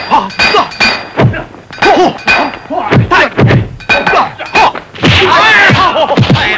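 Kung fu film fight sound effects: a rapid run of sharp punch and block whacks, mixed with the fighters' shouts and grunts. The yelling is thickest near the end.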